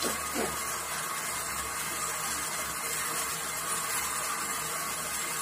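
Domestic monoblock water pump running steadily, its hose pouring a strong stream of water into a plastic bucket at good pressure.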